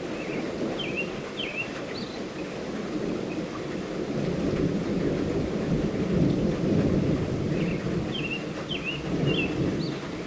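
Thunder rumbling low over steady light rainfall. The rumble builds about four seconds in, peaks around six to seven seconds and then eases off.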